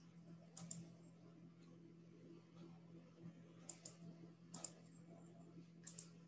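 Faint clicking at a computer: four sharp double clicks at irregular intervals, over a low steady electrical hum.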